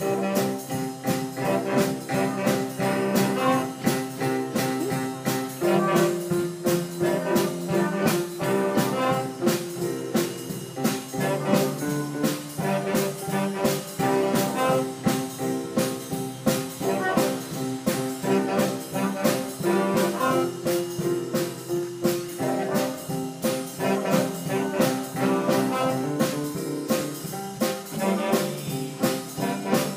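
A live band led by brass plays a jazzy piece over a steady drum beat, starting abruptly.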